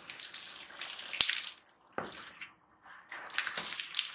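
Crunchy pebble slime packed with small white beads being squeezed and kneaded by hand. It crackles in three squeezes with short pauses between them, and there is a sharp pop a little past a second in.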